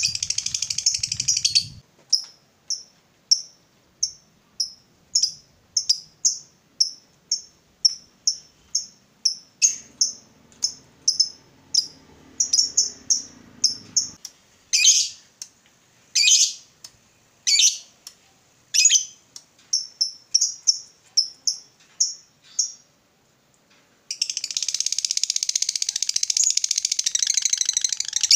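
Lovebird chattering in a fast, unbroken trill (the long 'ngekek'), breaking off about two seconds in into single sharp chirps at about two a second. A few longer falling calls come midway, then a short pause, and the long rapid trill resumes near the end.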